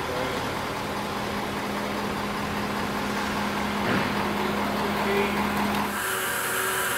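Ford F550's 6.7-litre Power Stroke turbo-diesel V8 running at a steady idle while the truck is eased under the camper. The steady engine hum drops out about six seconds in.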